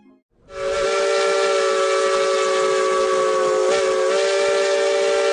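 Steam locomotive whistle blowing one long, steady blast from about half a second in: a chord of several held tones over steam hiss, with a brief wobble in pitch midway.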